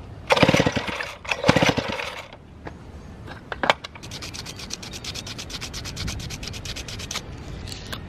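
Sandpaper scrubbing the electrodes of a small-engine spark plug to clean off a thick layer of oxide. Two loud, rough rubs come first, then fast short strokes, about a dozen a second, for about three seconds.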